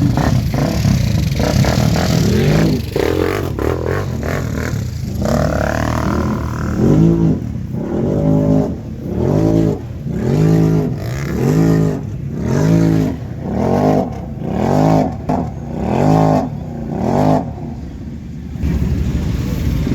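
Off-road vehicle engine running hard, then revved in repeated pulses about once a second, each rev rising and falling in pitch, about a dozen times before it settles near the end.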